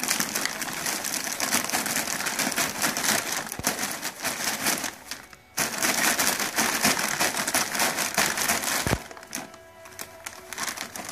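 Plastic cereal bags crinkling and rustling loudly as a ferret burrows into them and tugs at them, with a brief pause about five seconds in. Shortly before the end the rustling drops to softer, scattered crinkles.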